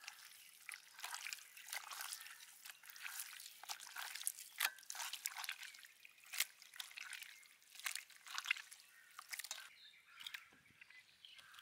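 Raw pork chitterlings, seasoned with salt, pepper and chili flakes, being squeezed, lifted and dropped by hand in a stainless steel bowl: irregular wet squelching and slapping that thins out about ten seconds in.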